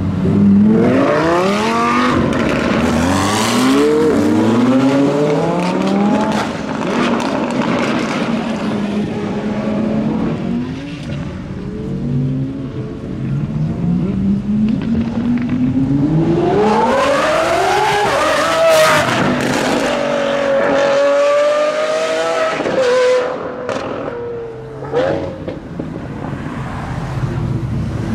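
Supercar engines accelerating hard. The pitch climbs and drops back through several upshifts, once over the first six seconds and again from about a third of the way in. A high held note follows, and a few sharp cracks come near the end.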